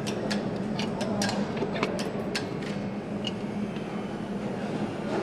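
Motorcycle factory ambience: a steady machine hum with a quick run of sharp clicks and clinks from tools and parts in the first couple of seconds, thinning out after that.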